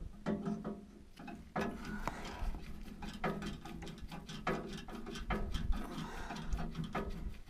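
Hand tools working on the metal control column of a Terex front end loader: irregular clicks, knocks and clinks of metal on metal, a few louder knocks spread through, as its cover is unbolted and taken apart.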